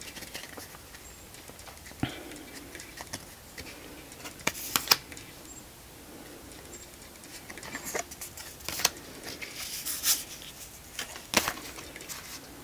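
A reproduction Tarot de Marseille deck being thumbed through by hand: quiet sliding and rustling of cards, broken by a handful of sharp flicks and snaps as single cards are pushed off the pack.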